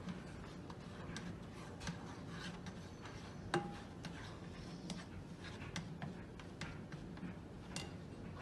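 A spatula working in a nonstick frying pan, spreading warming oil, gives scattered light ticks and scrapes. About three and a half seconds in there is one sharper knock with a brief ring from the pan.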